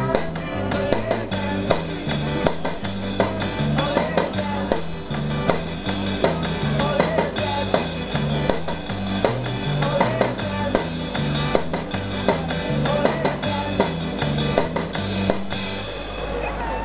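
Music with a bass line stepping from note to note and a steady drum beat: a puppet drummer's small drum kit and cymbals played along to a recorded backing track. The music stops shortly before the end.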